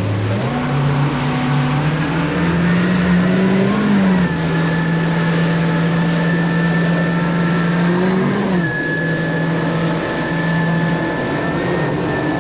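Motorboat engine running under way, its pitch stepping up about half a second in, climbing near four seconds and then holding steady, and easing off a little near eight and a half seconds, over wind and water rush.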